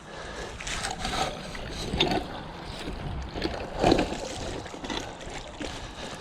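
Canal water sloshing and splashing in irregular surges as a snagged shopping trolley is hauled through it on a magnet rope, the biggest surge about four seconds in.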